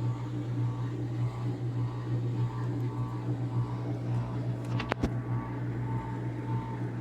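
Electrolux 12 kg front-loading washing machine in its final spin, the drum motor running with a steady hum and a fainter higher tone pulsing about twice a second. A single sharp click about five seconds in.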